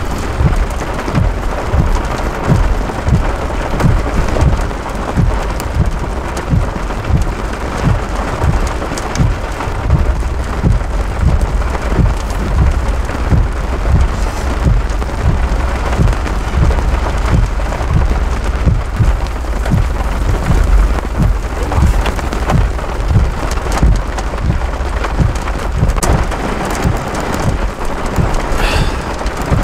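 Heavy thunderstorm rain pelting down, with drops striking close to the microphone as many irregular low thuds over a steady low rumble.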